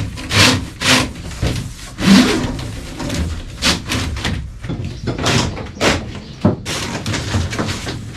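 Irregular knocks, bangs and scraping rustles of hands-on work, about a dozen sharp hits with rustling between them.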